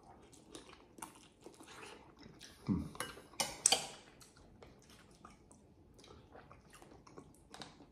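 A person chewing a mouthful of chicken curry, with quiet wet mouth clicks and lip smacks throughout. A brief low vocal sound comes about three seconds in, followed by a few sharper smacks.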